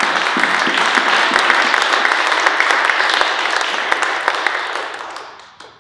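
Audience applauding, dense steady clapping that tapers off and stops near the end.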